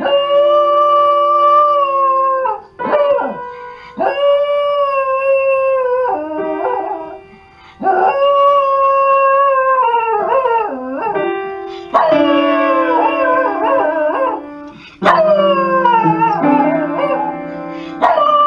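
A dog howling in a series of long, drawn-out howls, each falling in pitch at its end, with a new howl starting every three to four seconds over held piano notes from the keys the dog plays.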